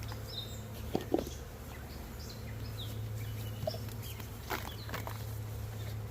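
Steady low hum of open honeybees around the hive, with short bird chirps and a few sharp clicks and taps from handling the sampling cup and container.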